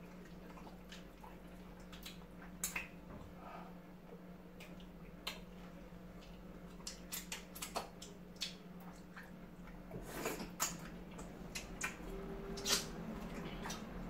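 Wet eating sounds of fufu and okro soup eaten by hand: scattered, irregular smacks, squishes and lip clicks over a faint steady low hum.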